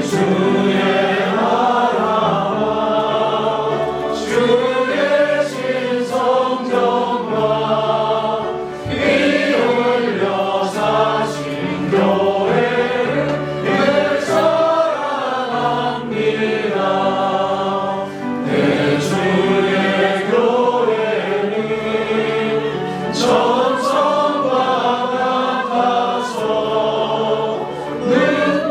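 Church congregation singing a hymn together.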